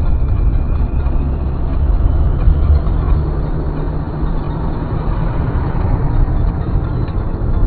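Steady low rumble of a car on the road: engine and road noise while driving.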